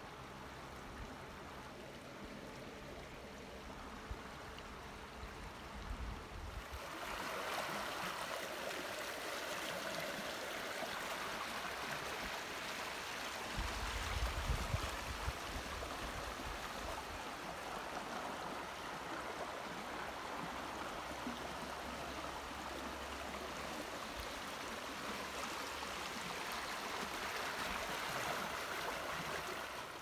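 Fast-flowing river current rushing steadily, getting louder about six seconds in, with a brief low rumble midway.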